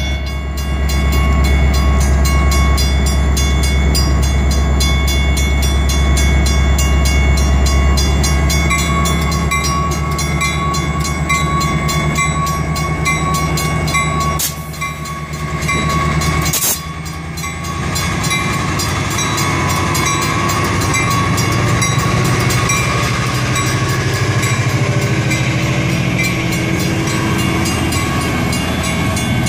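Metra MP36PH-3S diesel locomotive's EMD 645 V16 engine running loudly at close range, a steady deep drone. After a break about halfway through, the locomotive rolls past close by on the rails.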